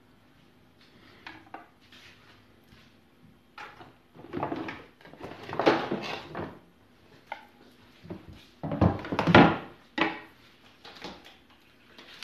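Kitchen handling sounds: utensils clattering and a wooden cutting board knocked down onto a stainless-steel sink drainer. The knocks come in several bursts starting about four seconds in, loudest about nine seconds in.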